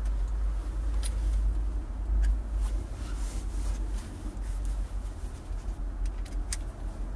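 Low rumble of handling noise with a few faint clicks and knocks as a socket bit and cordless drill are picked up and fitted together, before the drill is run.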